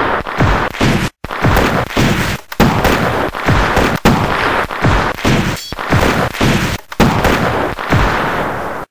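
Battle gunfire sound effect: a rapid series of loud shots, about three a second, each with a booming tail. It breaks off suddenly at the end.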